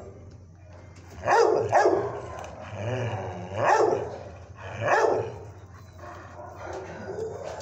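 Dog barking, about four loud barks spread over several seconds, over a steady low hum.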